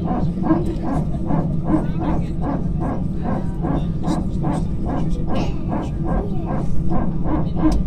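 Airbus A319's hydraulic power transfer unit barking in the cabin while taxiing: a rapid, even pulsing of about three beats a second over the steady hum of the engines.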